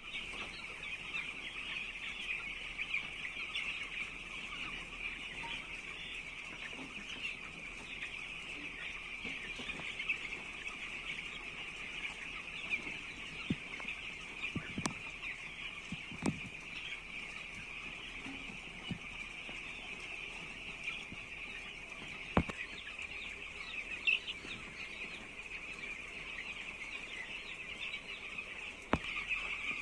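A flock of nine-day-old chicks peeping continuously, a dense chorus of many overlapping high chirps. A few sharp knocks sound now and then.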